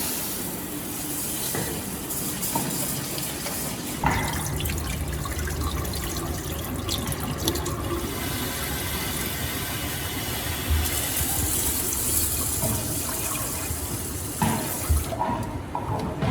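Water running steadily and splashing, then shut off abruptly about fifteen seconds in, with a knock about four seconds in.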